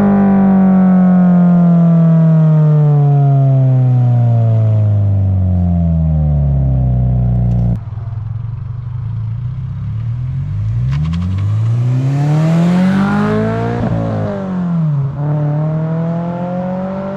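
Flat-four engine running through an HKS Hi-Power single-exit racing catback exhaust, its pitch falling steadily as the revs drop for the first half. After an abrupt cut about eight seconds in, it revs up and down several times. The exhaust is loud and deep.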